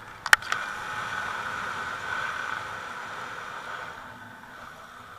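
Snowmobile running along a snow trail: a steady engine and track hum that fades as the sled slows. Sharp clicks come about a third of a second in.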